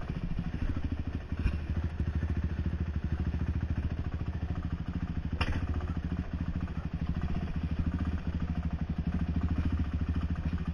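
ATV engine running steadily at low throttle, its exhaust pulsing evenly, heard close from the machine itself as it rolls over a rocky trail. A sharp click cuts in about halfway through.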